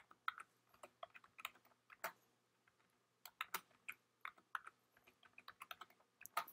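Faint, irregular keystrokes on a computer keyboard as a password is typed in, with a pause of about a second midway before typing resumes.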